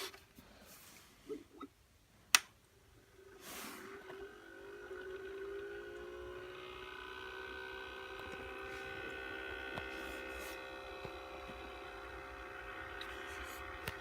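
A sharp click a little over two seconds in, then the Beurer LB44 humidifier starts up: a buzzing sound with several steady tones that glides up slightly in pitch and then holds steady. It is the loud buzzing and grinding noise the unit has developed, the sign of a fault.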